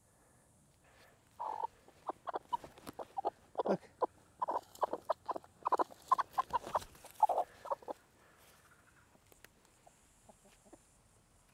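Hens clucking: a quick run of short clucks beginning about a second and a half in and lasting some six seconds, then dwindling to a few soft clucks.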